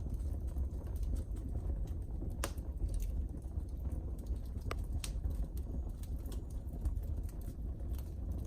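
Wood fire in a fireplace crackling, with irregular small snaps and a few sharper pops over a low steady rumble.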